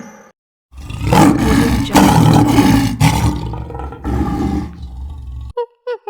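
A big cat roaring: a run of about four loud, rough roars, one after another. Near the end it cuts to a different animal's short, high calls.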